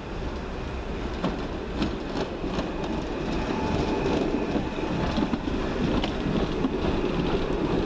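Class 139 Parry People Mover railcar running past on arrival, getting louder as it draws level. Its wheels click several times over the rail joints, and there is a faint high whine.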